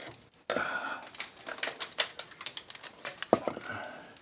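Metal clicks, taps and scrapes as an engine side cover is handled and worked onto a Yamaha TW200 engine case, with a sharper knock a little over three seconds in.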